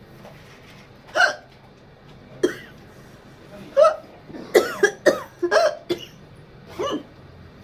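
A woman hiccupping over and over, short sharp vocal hics about a second apart with a quicker run of several in the middle. The hiccups were brought on by eating hot chillies.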